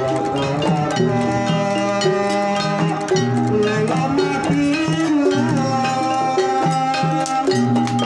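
Gamelan ensemble playing: bronze kettle gongs and keyed metallophones struck in a steady pattern over large barrel-shaped kendang hand drums, with ringing held notes and occasional sliding pitches above.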